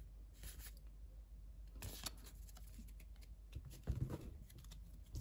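Trading cards being handled and flicked through by hand: faint, scattered soft clicks and rustles of card stock.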